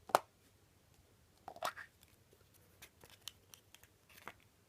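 A surprise toy package being torn open and handled: scattered short crinkles, rips and clicks of plastic wrapping, loudest about one and a half seconds in.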